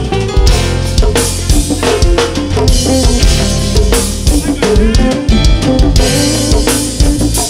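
Hip-hop beat playing loudly: heavy bass under a drum kit with kick and snare hits.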